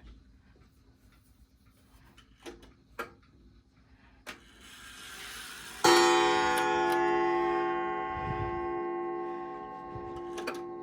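Coil gong of a wall clock's striking movement, hit once by the hammer about six seconds in and ringing on with many overtones in a long, slow decay. A few light clicks and a short rush of noise come before the strike.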